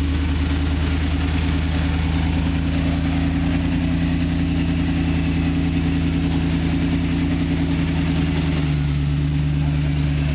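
1976 Ford Bronco's engine running steadily at low revs as it crawls over rock, its note shifting slightly about eight and a half seconds in.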